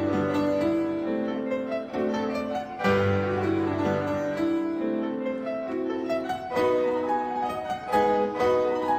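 Instrumental music: a piano-like keyboard melody over held low notes, the low notes sounding afresh about three seconds in.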